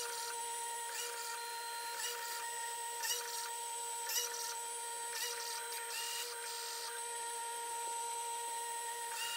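Taig CNC mill cutting an aluminium plate with a small end mill: a steady machine whine from the running spindle and motors, with a brief change in the cutting sound about once a second.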